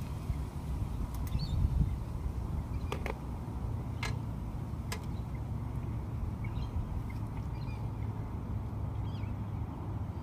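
A low steady rumble with faint bird chirps and a few sharp clicks.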